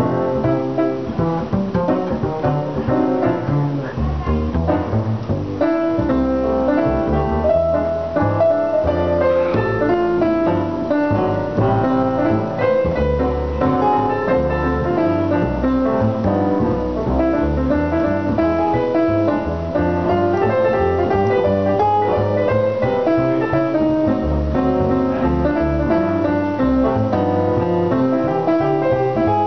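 Jazz duo playing live: a digital piano with an upright double bass plucked underneath.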